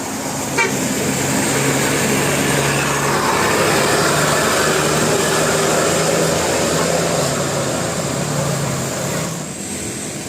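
A bus driving past: engine and road noise swell about a second in, hold steady, then drop off about nine seconds in, with a faint low engine note underneath.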